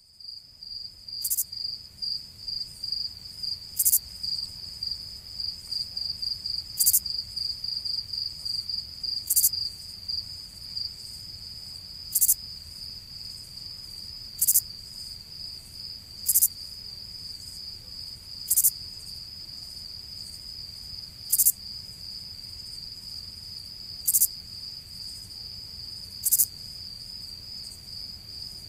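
Insects trilling: a steady high-pitched trill that pulses for the first ten seconds or so, with a short sharp chirp every two to three seconds.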